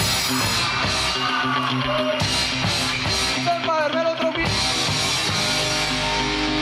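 Rock music with a steady beat, played loud as walk-off music.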